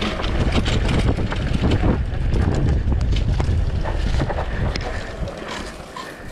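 Wind buffeting the camera microphone over the rattles and knocks of a mountain bike running down a dry dirt trail, dying down near the end.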